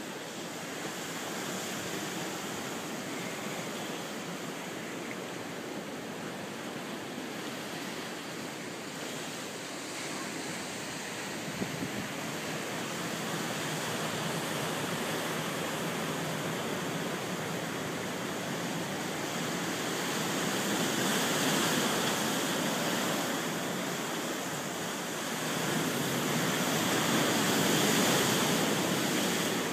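Ocean surf breaking and washing onto the beach: a steady rushing hiss that swells and eases, with two larger waves building up in the second half.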